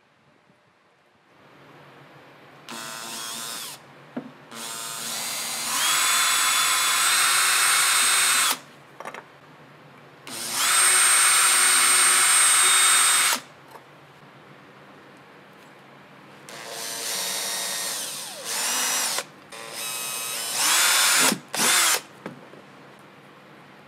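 Cordless drill running in a series of trigger pulls, about eight runs starting a few seconds in, the longest about four seconds, its motor whine rising as it spins up. It is drilling small holes through thin wooden craft sticks.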